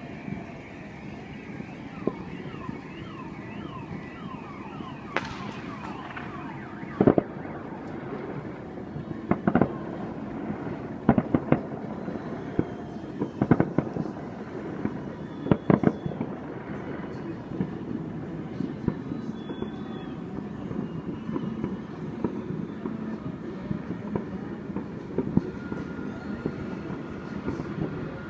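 Fireworks going off: a string of sharp bangs, thickest in the middle stretch. A car alarm warbles during the first few seconds.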